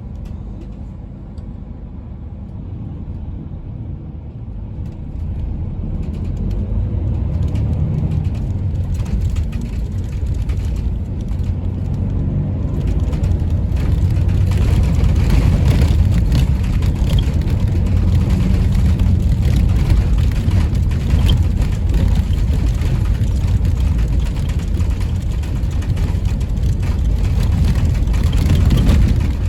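Inside a highway bus driving over a bumpy, rutted snow-packed road: a steady low engine and road rumble with the cabin rattling and jolting. It grows louder about six seconds in, and from about thirteen seconds the rattles come thick and fast.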